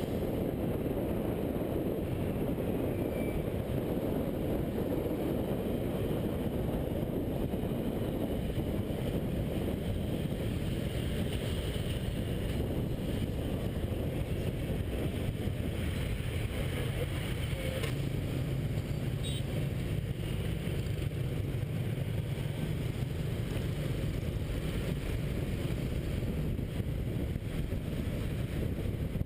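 Steady low rumble of a moving motorbike filmed from on board, with its engine running and wind on the GoPro's microphone, in city scooter traffic.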